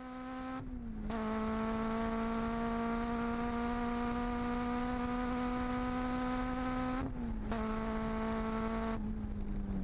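Car engine sound effect held at steady revs, a constant buzzing tone that dips briefly in pitch about a second in and again around seven seconds, then thins out near the end.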